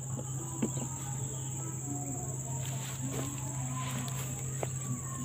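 Insects, crickets or cicadas, shrilling in one steady high-pitched drone, over a low steady hum and a few faint ticks.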